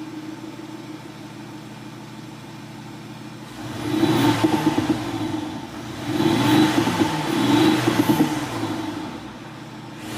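Mercedes-Benz CLA (C118) engine idling with its active sound system producing the exhaust note. It is then revved twice, each rev a couple of seconds long and much louder than the idle, beginning about three and a half and six seconds in.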